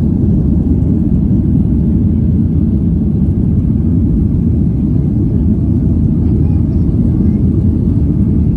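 Boeing 737 airliner on its takeoff roll, heard from inside the cabin: a loud, steady low rumble of jet engines at takeoff thrust and wheels on the runway.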